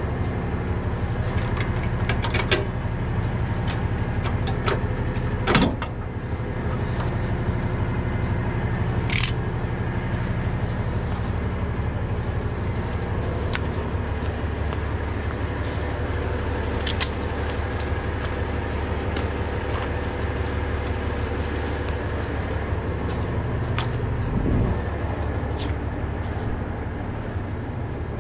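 Heavy tow truck's diesel engine idling steadily, with scattered sharp metal clanks and knocks from chains, straps and the wheel-lift being handled. The loudest clank is about five seconds in, and a duller knock comes near the end.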